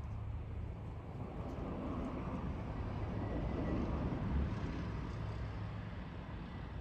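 Low engine rumble that builds to a peak about halfway through and then eases off, over a steady low drone.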